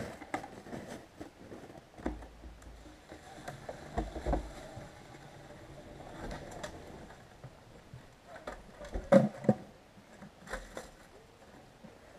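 A plastic bucket of maple sap being handled and emptied into a collection tank on a trailer: scattered clunks and knocks, the loudest a quick pair about nine seconds in.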